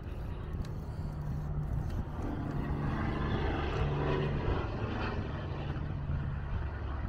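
Highway traffic: a steady engine drone, with a vehicle passing that swells to its loudest about four seconds in and then eases off.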